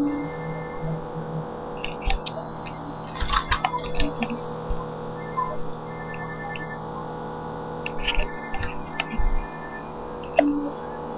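A paper magazine being handled close to a webcam's built-in microphone, its pages rustling and clicking in two short bursts, over a steady electrical hum.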